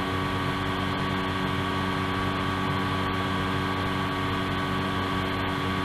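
Steady droning hum with hiss, several held tones under it, unchanging throughout.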